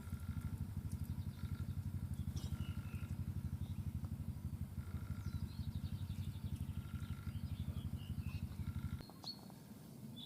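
A motor engine running steadily with a fast, even low throb, which stops abruptly about nine seconds in. Small songbirds call and twitter over it.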